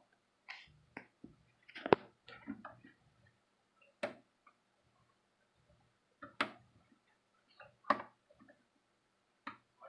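Rotary selector knobs and switches of a nixie-tube Model 7000 digital multimeter being turned: a scattered run of sharp clicks, the loudest about two seconds in.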